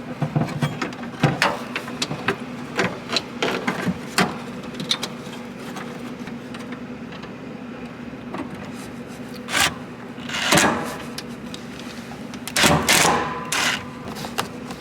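Irregular clicks, knocks and brief scraping as a car's power antenna motor assembly is handled and fitted back into place, over a faint steady hum.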